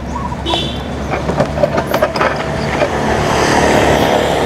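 Motor vehicle engine running with road noise, growing louder about three seconds in.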